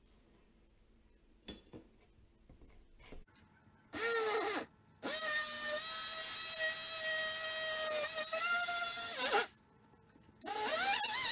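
Corded oscillating multi-tool cutting into the drywall. After a few light handling clicks it buzzes briefly about four seconds in, then runs steadily for about four seconds and stops. It starts again near the end, its whine rising as it comes up to speed.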